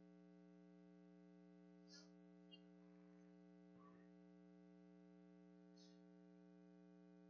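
Near silence: a faint, steady electrical hum with a few very faint soft sounds.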